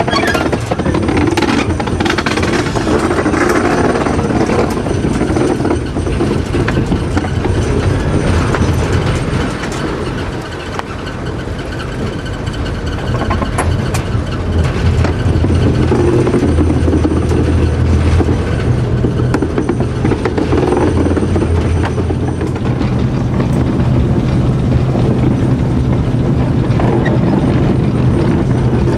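TEM2 diesel shunting locomotive moving along the track, heard from the cab: its diesel engine runs with a steady low drone, over the rumble of the wheels on the rails with occasional clicks and knocks.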